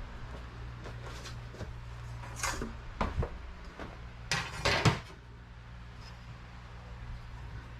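Scattered knocks and clattering of hard objects being handled, the loudest cluster about four and a half to five seconds in, over a steady low hum.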